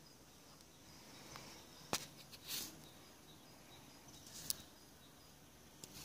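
Quiet outdoor ambience with faint, repeated high chirping from birds or insects, broken by a few sharp clicks and a short rustle of the phone camera being handled as it moves.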